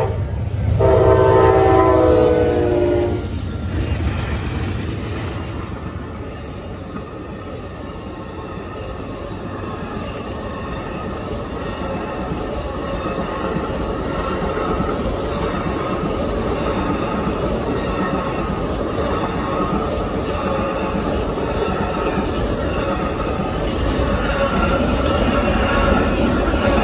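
Amtrak Auto Train passing at speed behind GE P42DC locomotives. The locomotive horn sounds for about three seconds at the start. Then a long string of bi-level coaches and enclosed auto-carrier cars rolls by with steady wheel-on-rail noise and a thin whine from the wheels, getting louder again near the end.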